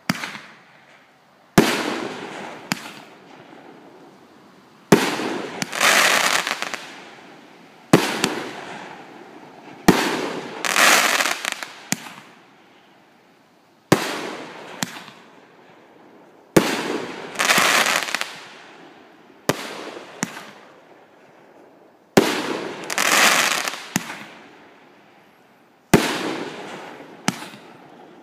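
Pyro Demon Skull Crusher multi-shot aerial firework firing shot after shot, about every two to three seconds. Each shot is a sharp launch report followed by a loud burst overhead that fades away over a second or two.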